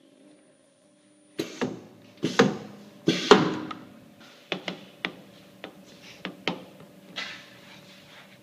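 A run of sharp knocks and clacks of hard objects, several in close pairs, loudest about three seconds in, then lighter taps. Before them, for about a second, a faint high steady tone.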